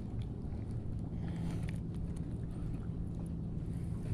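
Low steady hum of a boat engine, coming in about a second in, over a constant low rumble.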